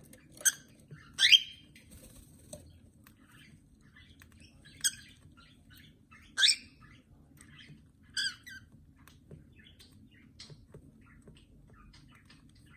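Pet birds calling: about five short, loud, shrill calls spread over the first eight seconds, with softer chirps in between.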